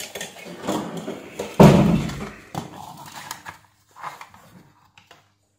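Handling noise from a large digital wall clock circuit board as it is turned over and laid on the workbench: light knocks and rustles, with one heavy thump about one and a half seconds in. It dies away to a few faint clicks.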